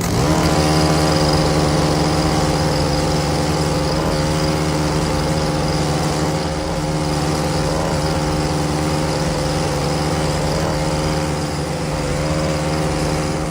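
A heavy vehicle's engine running. Its pitch rises briefly at the start, then holds steady.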